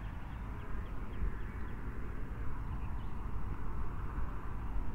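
Steady low outdoor rumble with faint bird chirps during the first second or two.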